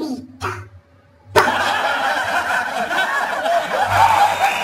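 A man's short vocal sound, then after a brief gap a sudden wash of crowd noise, many voices with clapping, that starts about a second and a half in and keeps on.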